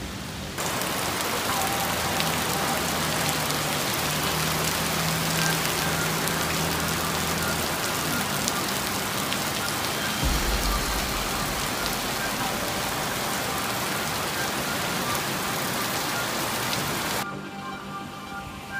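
Heavy rain pouring onto a wet street, a dense steady hiss. It drops away near the end, leaving background music.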